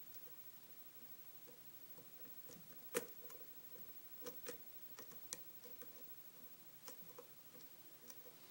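Faint, irregular ticks and clicks of a lock pick working the spring-loaded pins of a five-pin Kwikset lock under very light tension, with one sharper click about three seconds in.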